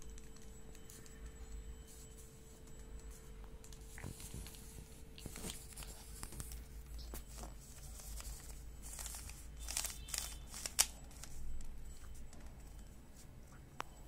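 Faint clicks and scrapes of a plastic Rubik's cube being fumbled and turned in small hands, with a few sharper clicks in the second half, over a faint steady hum.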